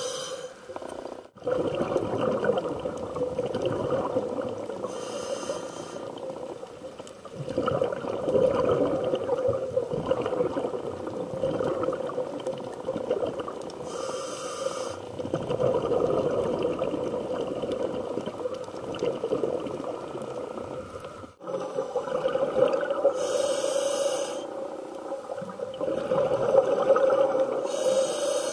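Scuba diver breathing through a regulator underwater, heard through the camera's housing: brief hissing inhalations every several seconds, each followed by long bubbling exhalations.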